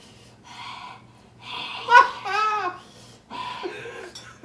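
Heavy, breathy exhales and a short wavering vocal cry or moan from people suffering the burn of extra-spicy Samyang hot chicken noodles.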